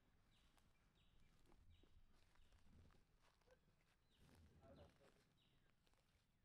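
Near silence: faint outdoor background with a few soft clicks and low thumps.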